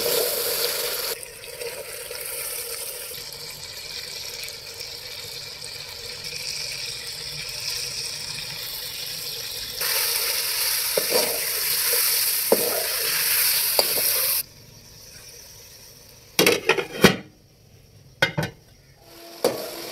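Chicken pieces and spices sizzling in hot oil in an aluminium pot, stirred with a metal spoon. Near the end the sizzling drops away and a few sharp metallic knocks are heard.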